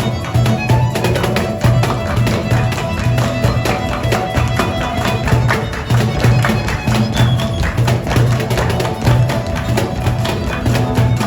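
Folk band playing an instrumental break with a steady bass beat and busy picked string instruments.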